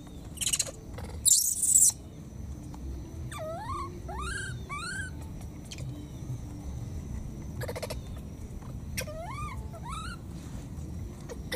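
Baby monkey giving thin, rising calls in two runs of three, the first about three seconds in and the second about nine seconds in. Two short bursts of rustling leaves and branches come near the start.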